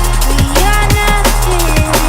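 Electronic drum-and-bass background music: fast, regular drum hits over a steady bass line with a gliding synth melody.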